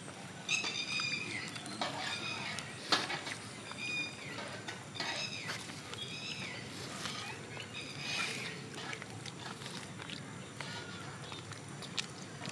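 Birds calling: a string of short, high calls that bend in pitch, repeating every second or so, with a sharp click about three seconds in.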